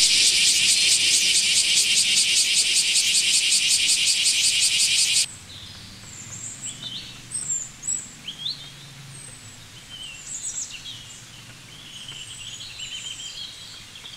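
A cicada singing: a loud, rapidly pulsing high buzz that cuts off suddenly about five seconds in. After it, small birds chirp quietly now and then.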